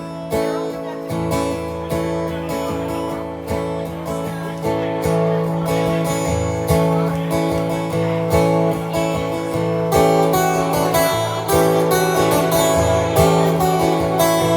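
Acoustic guitar strumming chords steadily, with no singing.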